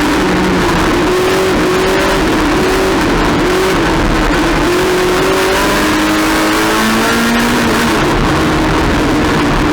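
Race car engine running hard under load, its note climbing and then dropping several times as it revs up and shifts gear.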